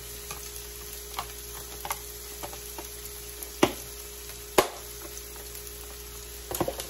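Onions and green peppers sizzling in vegetable oil on a hot electric grill: a steady frying hiss broken by a few sharp clicks, the loudest two about three and a half and four and a half seconds in.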